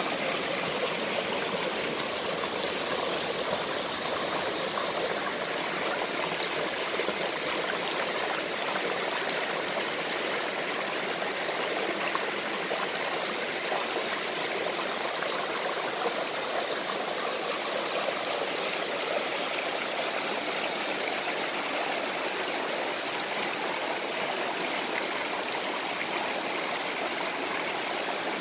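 Waterfall and stream: water falling and rushing in a steady, unbroken flow.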